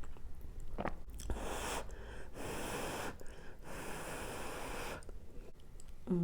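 Close-miked breath noise while eating: a run of hissing breaths, four or five of them over about four seconds, with some chewing.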